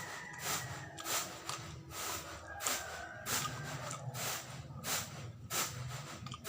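Close-up wet chewing and lip-smacking of a sticky glutinous-rice and coconut sweet, with short smacks coming about one and a half to two times a second.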